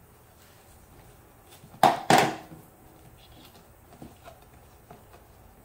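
An old cardboard coin box being pulled open, the aged cardboard soft and coming apart. Two short, loud rips sound close together about two seconds in, then a few faint taps and clicks.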